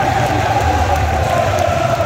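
Large football stadium crowd singing together, with clapping from the fans around.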